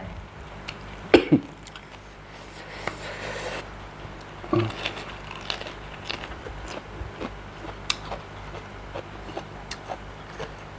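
A person eating at close range: biting, crunching and chewing a mouthful of spicy seafood papaya salad, with scattered sharp clicks and a louder bite about a second in and another near five seconds in.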